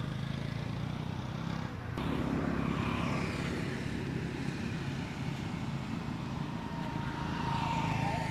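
A steady low motor drone, which changes abruptly about two seconds in, with a thin whine near the end.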